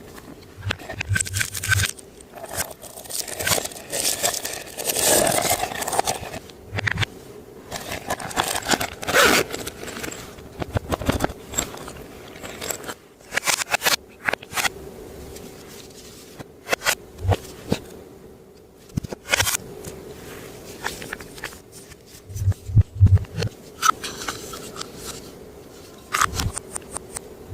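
Hands working clear slime being mixed with makeup and glitter: irregular sticky scraping and squishing with many sharp clicking pops.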